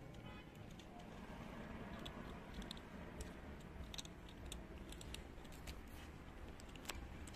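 Cats crunching dry cat food: faint, irregular crunchy clicks, more frequent from about two seconds in, over a low rumble.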